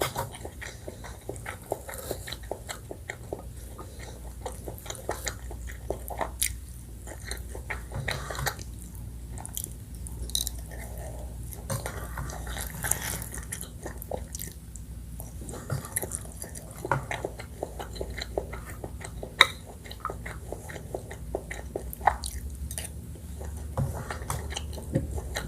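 Close-up mouth sounds of someone eating rice with green curry chicken: wet chewing, smacking and biting as irregular soft clicks throughout, with a low steady hum underneath.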